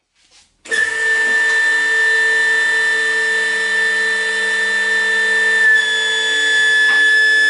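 Electric hydraulic pump motor of a CJ Autos CJ07 two-post car lift running with a steady whine. It starts abruptly about a second in, with a slight shift in pitch about halfway through.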